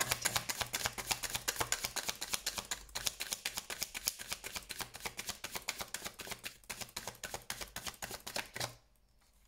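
A deck of oracle cards being shuffled by hand: a rapid, even patter of cards slapping and flicking against each other, several strokes a second. It stops abruptly near the end.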